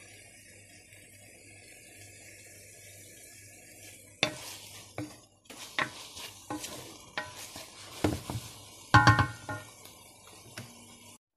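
Chicken and vegetables sizzling faintly in a frying pan. From about four seconds in, a wooden spoon stirs and scrapes through them, with repeated knocks against the pan; the loudest clatter comes near the end.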